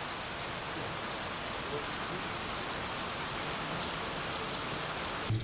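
Heavy rain pouring down steadily, a dense even hiss.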